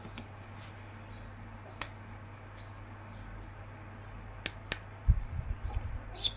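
Faint handling noises over a steady low hum: a few isolated sharp clicks, then near the end a short run of soft, low knocks.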